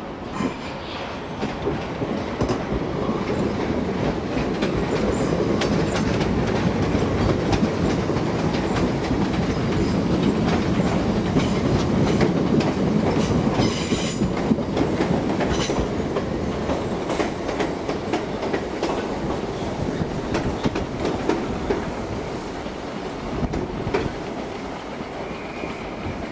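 Electric suburban train running over jointed track and points: a steady rumble with wheels clicking over rail joints. It builds to its loudest around the middle and eases off towards the end.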